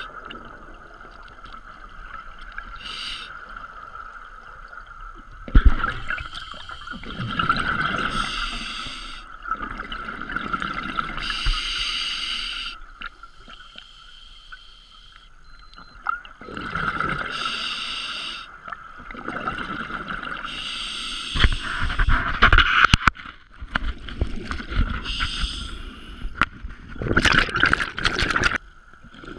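Scuba regulator breathing heard underwater: a bubbly burst of exhaled bubbles every few seconds, some loud and close, over a steady hum.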